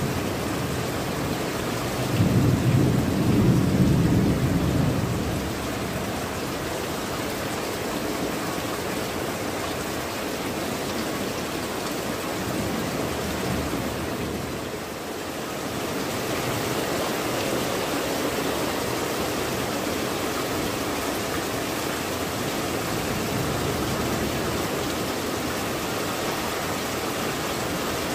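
Steady heavy rain pattering on clay tile roofs and foliage, with a low rumble of thunder about two seconds in that lasts a few seconds.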